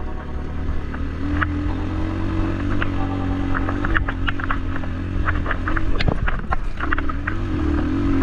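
A motor vehicle running steadily, with a low drone and a wavering engine note, over frequent small rattles and clicks.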